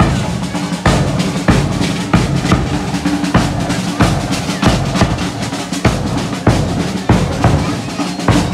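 Batucada samba drum group playing a steady beat, with strong drum strokes about twice a second.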